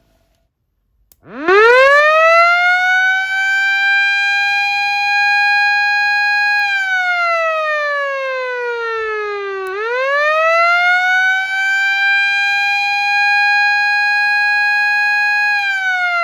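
Osaka Siren Model 5S motor siren, loud: switched on with a click about a second in, its rotor spins up into a quickly rising wail that settles to a steady pitch, then coasts down in pitch when the power is cut. It is switched on again partway down, winds back up to the steady wail, and begins to wind down once more near the end.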